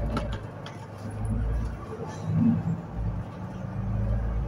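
Solaris Urbino 12 city bus heard from inside, its 9.2-litre DAF PR183 diesel running with low road rumble that swells about a second in and again near the end.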